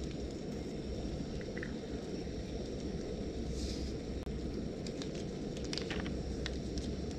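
Small portable gas burner running on a butane cartridge through an adapter, burning steadily under a pot of water coming to the boil: an even low roar.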